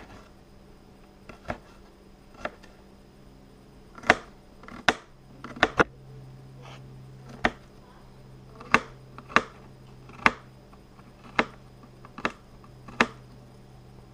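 Kitchen knife cutting garlic on a cutting board: about a dozen separate sharp knocks, unevenly spaced, roughly one a second.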